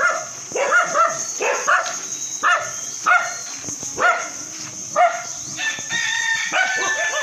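Dogs barking repeatedly, about two barks a second, with a longer drawn-out call near the end.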